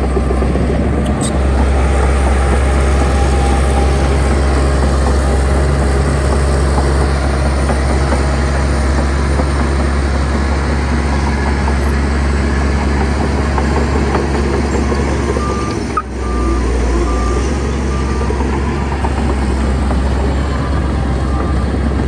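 Heavy diesel engines of dump trucks and a bulldozer running steadily. From about 15 seconds in, a reversing alarm beeps roughly twice a second.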